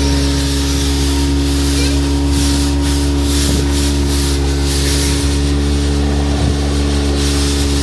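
Guzzcavator vacuum excavator running: a steady engine drone under the rushing noise of its suction, which thickens and thins in patches as debris is drawn in.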